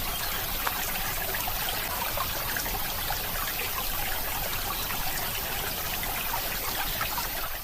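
Steady running water, a trickling stream, with a fine scatter of small splashes and drips.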